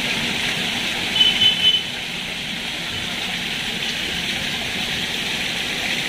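Steady rushing of running water feeding a koi pond, with a few brief high chirps about a second in.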